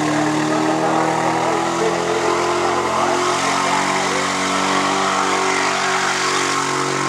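Tuff truck competition vehicle's engine running hard at high revs as it drives the course, its pitch dipping a little about three seconds in.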